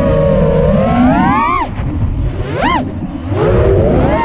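FPV quadcopter's brushless Stout motors, on FETtec ESCs, whining with pitch that rises and falls with the throttle. The whine climbs, drops away about a second and a half in, and gives one quick sharp rise-and-fall throttle punch before climbing again near the end. A low rush of air noise runs underneath.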